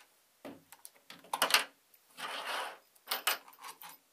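Hands handling the plastic front head of a small magnetic-drive pump and setting loose metal screws down on a table: a run of clicks, taps and light rattles, with a short scrape a little after two seconds.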